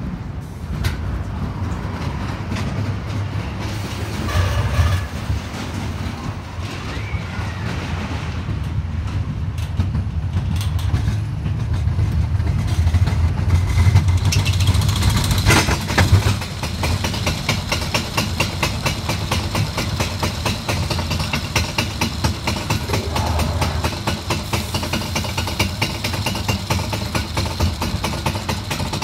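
Galaxi roller coaster car rumbling along its steel track, then catching the lift chain with a clank about halfway through and climbing the lift hill with a rapid, regular clicking.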